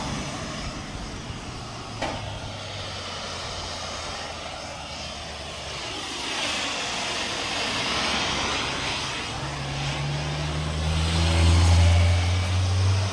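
An engine droning steadily, growing louder in the last few seconds, with a single sharp knock about two seconds in.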